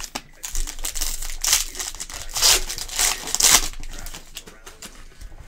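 Foil wrapper of a basketball trading-card pack crinkling and tearing as it is ripped open by hand, in a run of loud rustling bursts lasting about three seconds.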